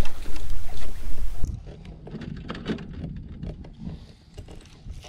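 Wind buffeting the microphone with a loud low rumble for about the first second and a half, then cutting off suddenly to a quieter run of small clicks and rubbing from a fishing rod and reel being handled.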